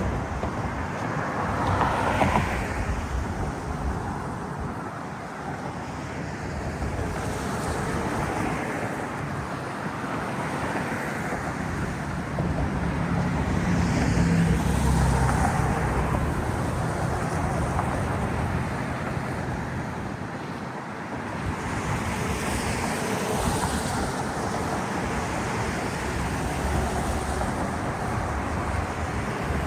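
Steady city traffic noise with wind on the microphone; a low vehicle rumble swells for a few seconds around the middle.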